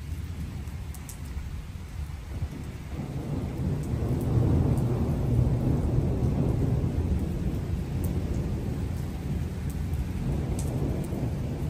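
Rain falling on a flat concrete rooftop, with a low rolling rumble of thunder that swells about three seconds in and keeps rumbling.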